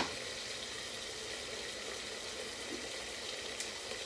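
Sauce browning in a stainless sauté pan, sizzling steadily, with a pot of pasta water boiling alongside.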